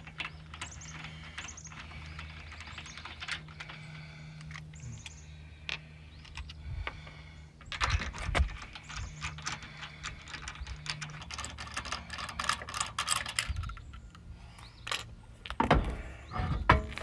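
Tools and metal parts clinking and rattling in short clusters, with a few heavier knocks near the end, while a car's intake parts are worked on by hand; a faint steady low hum runs underneath.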